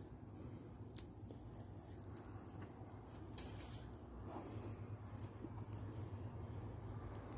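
Faint rustling and crackling of dry vine stems and seed pods being handled, with a few small sharp clicks, over a low steady hum.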